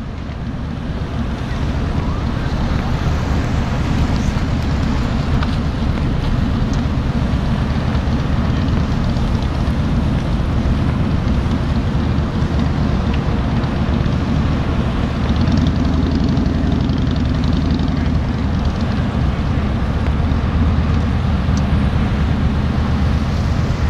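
Fire engine's diesel engine running steadily with a loud low drone as it drives the pump feeding the hose lines.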